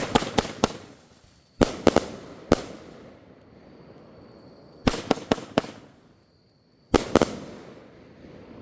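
A 16-shot 500 g firework cake firing: groups of three or four sharp bangs come about every two seconds, each group trailing off in a short hiss.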